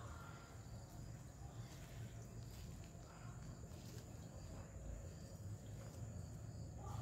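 Faint outdoor background: a steady high-pitched insect drone over a low rumble, with a few light knocks.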